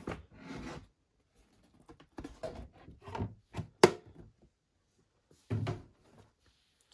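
A large cardboard gift box and its packing being handled as an item is lifted out: scattered rubs and light knocks, with a sharp tap about four seconds in and a duller thump a moment later.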